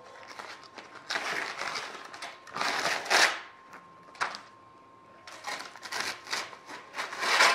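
Clear plastic film crinkling and rustling in irregular bursts as it and thin aluminium sheet are handled on a sheet-metal brake.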